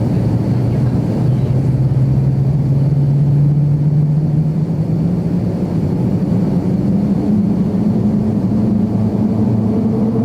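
Cabin noise of an Avro RJ100 with its four turbofan engines running: a steady loud rumble with a low hum that rises steadily in pitch, typical of the jet gathering speed on its takeoff roll.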